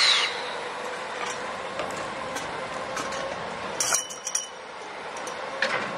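Railway turntable slowly turning with steam locomotive 8630 on it: a steady mechanical hum with scattered metallic clicks, and a cluster of sharp metallic clinks about four seconds in. A short loud burst comes right at the start.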